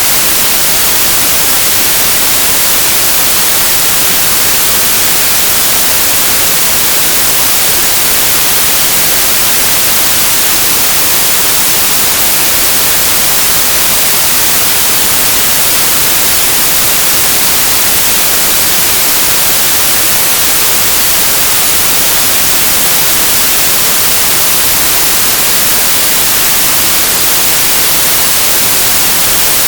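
Loud, steady hiss of static, like white noise, strongest in the high end, with no breaks or changes.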